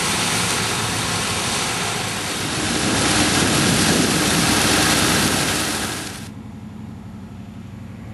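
Tractor engine running as it pulls a swath wilter, whose pick-up and draper throw straw aside, with a loud rushing noise over the engine. About six seconds in the rushing cuts off suddenly, leaving a quieter low engine drone.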